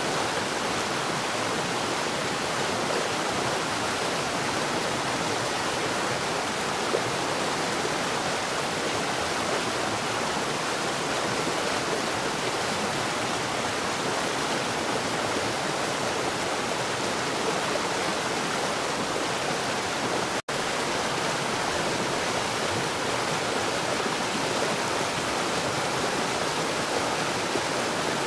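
Steady heavy rain, an even, unbroken rushing hiss with no thunder, briefly cutting out for a split second about twenty seconds in.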